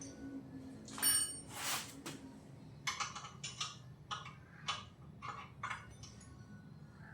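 Hand tools working on the motorcycle's metal fittings: a couple of sharp ringing metal clinks about a second in, then a run of light metallic ticks about two a second while the ignition coil's fixings are worked loose.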